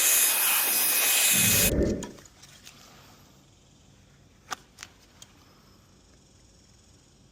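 Paint sprayer hissing steadily, then cutting off a little under two seconds in with a short low puff. After that it is quiet apart from three faint clicks.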